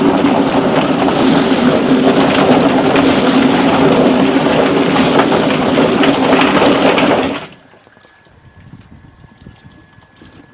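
Chicken plucking machine running, a steady motor hum under loud rushing and splashing of water, switched off about seven seconds in.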